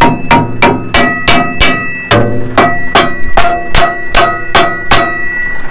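A small sledgehammer repeatedly striking the steel frame of a farm tillage implement during a field repair, about three blows a second, each one a sharp clang with a brief metallic ring.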